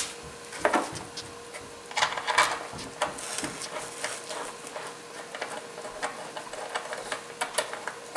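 A home-made metal bracket being fitted onto a plastic headlight housing by hand: irregular light clicks and taps of metal on plastic, over a faint steady hum.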